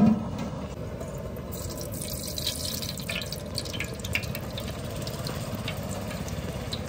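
Whole spices frying in hot oil in a large aluminium pot over a gas burner: a steady hiss with scattered small crackles and pops that start about a second and a half in.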